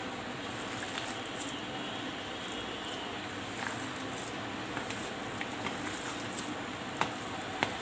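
Hands squishing and kneading a soft mixture of soaked sago pearls, boiled potato and chopped vegetables in a plastic bowl, with a few light clicks, over a steady background hiss.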